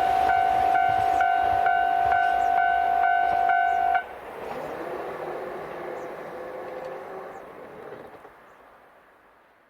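Japanese railway level-crossing alarm ringing with a steady tone and a chime about twice a second, cutting off suddenly about four seconds in. After that the rumble of a diesel train running away from the crossing fades out.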